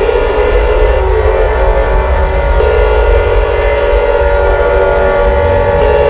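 Emergency alert alarm: a loud, dense chord of held tones over a deep rumble, its pitches stepping to new notes a few times.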